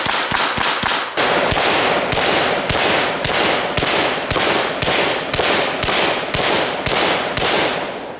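Chrome Auto-Ordnance Thompson in .45 ACP firing a long string of semi-automatic shots as fast as the trigger can be pulled, about five a second at first, then about two a second, each shot followed by a ringing echo. The gun is cycling reliably after a jam was cleared.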